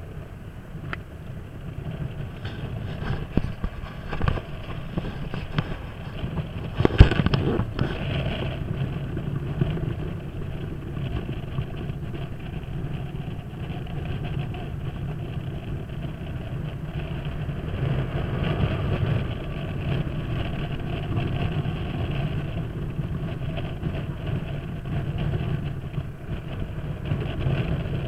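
Kymco Downtown 300i scooter's single-cylinder engine running under way, mixed with steady wind and road noise. A sharp thump about seven seconds in.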